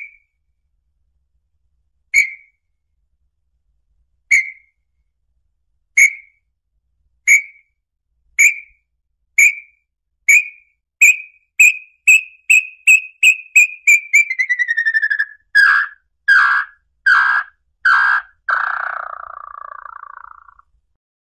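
Small-billed tinamou (lambu-pé-vermelho) song. Clear whistled notes start about two seconds apart and speed up into a rapid run. The run slides down in pitch, then breaks into four louder, rougher notes and ends in one longer, lower note that fades out.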